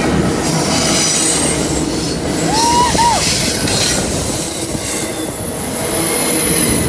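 Double-stack intermodal container train passing close by: steady rolling noise of the well cars' wheels on the rails, with thin high-pitched wheel squeal. Two short rising-and-falling squeaks come near the middle.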